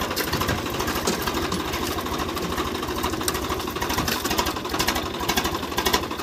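Tractor diesel engine running steadily with a rapid, even beat.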